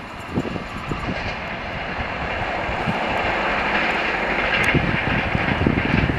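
Madgaon Rajdhani Express running away at about 100 km/h: a steady rushing roar of its wake and rolling wheels, with scattered wheel clicks, swelling louder toward the end.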